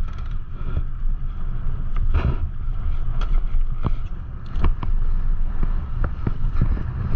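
Strong wind rumbling on the microphone of a mountain bike riding down a dirt trail, with tyre noise and the bike's chain and frame rattling in frequent sharp knocks over rough ground.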